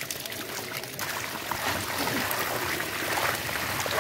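A heap of netted live fish flapping and splashing in shallow muddy water on a tarp, with water trickling and pouring off them: a steady wet patter of many small slaps that grows a little louder about a second in.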